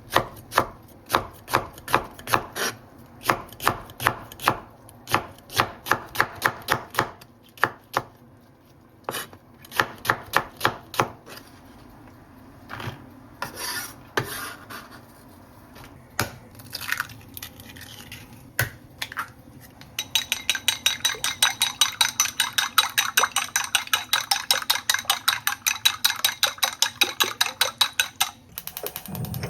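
Kitchen knife chopping on a cutting board. Even strokes come about two a second for the first ten seconds or so, then a few scattered cuts. For the last eight seconds it turns to rapid chopping of about six strokes a second.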